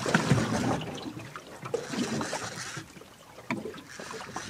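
Water lapping and trickling against the hull of a small drifting boat, with a few light knocks.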